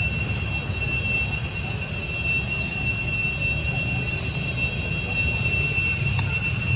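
Insects droning: a steady high-pitched whine that holds one pitch without a break, over a low rumble.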